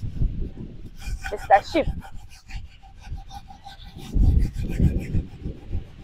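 Wet sand being scrubbed by hand against an aluminium cooking pot: a gritty rubbing and rasping. There is a brief falling squeak about a second and a half in, and low gusts of wind on the microphone near the end.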